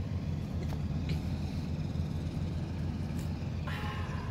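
Steady low, even rumble of a motor running nearby, with a short higher-pitched call near the end.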